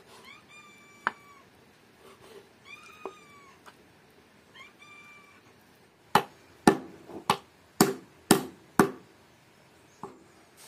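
A cat meows three times. Then a large knife chops through lamb pieces on a wooden cutting board, about six sharp strokes roughly two a second; the chopping is the loudest sound.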